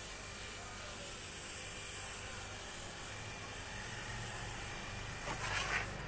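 Compressed-air paint spray gun hissing steadily as it sprays paint onto a sheet-metal washing-machine body, with the low hum of the compressor motor underneath.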